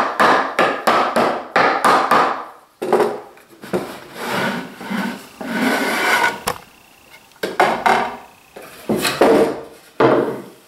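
Sliding wooden lid of a small box being dry-fitted in its grooves: a quick run of light wooden knocks, then wood scraping on wood as the lid slides, and a few more knocks near the end.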